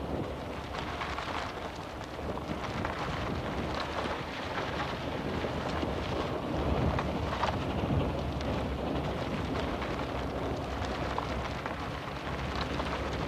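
Steady rushing noise, like heavy rain, with a low rumble underneath.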